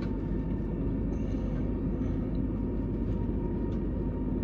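Steady low rumble and hum inside the passenger car of a Fuxing high-speed electric train, with a faint steady whine over it.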